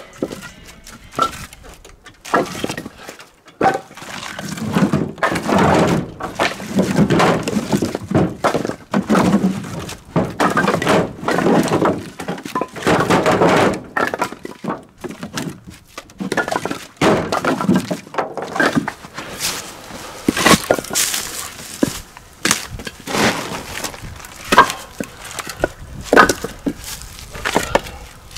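Wood knocking and clattering: many sharp cracks and thuds at uneven intervals, denser between about four and fourteen seconds in.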